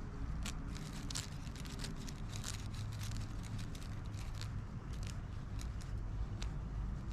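Feathers being pulled from a quail's skin a few at a time: irregular quick ticks and crackles over a low rumble.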